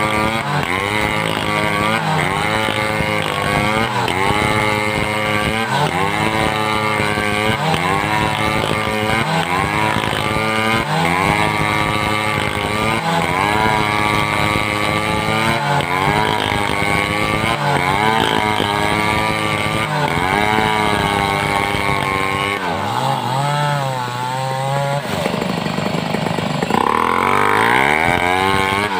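Home-built two-stroke chainsaw cutting wood, its engine pitch dipping and recovering about every second and a half as the chain bites and frees in the cut. Near the end it drops to a low idle for a couple of seconds, then revs back up high.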